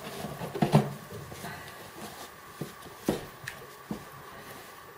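Handling noises from a hiking boot being lifted out of a cardboard shoebox: light rustling and rubbing with a few short knocks, the loudest about a second in.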